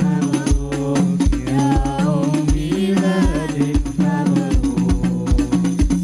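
A man singing an Arabic celebratory song into a microphone, over percussion: a steady low drum beat about twice a second and jingling tambourine-like strokes.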